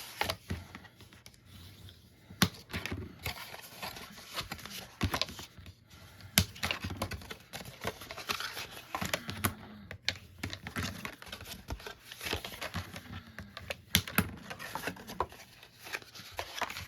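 Scored cardstock being folded and burnished with a bone folder: scratchy rubbing strokes of the folder along the creases, paper crinkling, and irregular sharp taps and clicks on the work surface.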